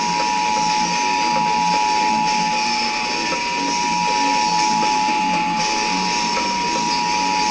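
Emergency Alert System attention signal, the steady two-tone EAS alert, held on without a break over background music with guitar and drums. The tone has choked: it keeps sounding instead of ending.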